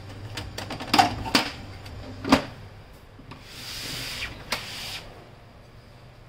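Plastic clicks and knocks as the covers and tray of an HP LaserJet Pro MFP M26 printer are pushed shut, the sharpest about a second in and just after two seconds in. This is followed by a scraping rub with one more knock, about a second and a half long, as the printer is slid and turned around on its mat on the floor.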